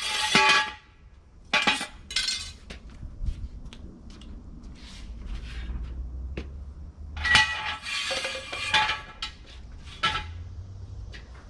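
Metal clanking and clinking in several clusters of ringing strikes, typical of steel tools and parts knocked together during suspension work on a jacked-up truck.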